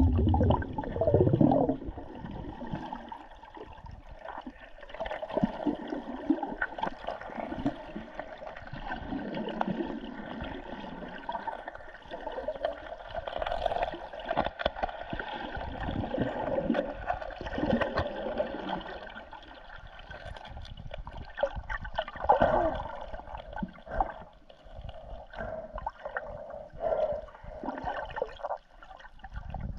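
Underwater sound picked up by a camera held below the surface: irregular water gurgling and sloshing with scattered sharp clicks.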